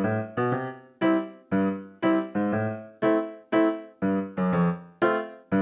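Background music: a keyboard playing notes and chords struck about twice a second, each fading quickly.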